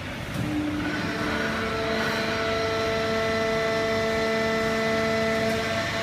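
Fully automatic horizontal hydraulic baler with its infeed conveyor running: a steady machine drone with several steady whining tones, growing a little louder and stronger about a second in.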